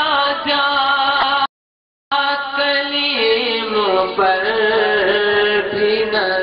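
Urdu devotional song: a singer holding long melodic notes, cut by a sudden gap of dead silence for about half a second about a second and a half in.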